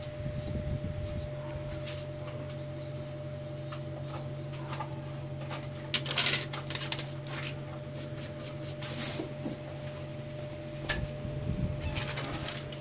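Small plastic clicks and rustles from handling a smartphone's display module and parts on a work mat, with a cluster of louder crackles about six seconds in and more near the end, over a steady low hum.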